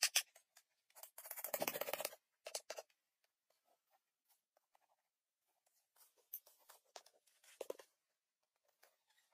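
Faint scrapes and light knocks of cut wooden logs being handled and laid on bare soil, with a louder scratchy rustle about a second in.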